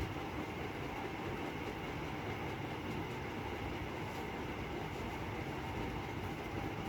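Ceiling fan running: a steady whooshing hum with a faint tone or two in it.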